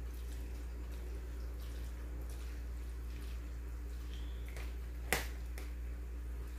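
Spoon stirring mayonnaise-dressed macaroni salad in a glass bowl: soft wet squishing and light clicks, with one sharper click about five seconds in, over a steady low hum.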